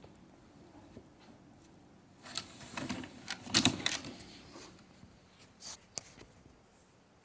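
Ferrets scrabbling and playing: a flurry of rustling, scraping clicks and light knocks, busiest and loudest from about two to five seconds in, with a few more clicks near six seconds.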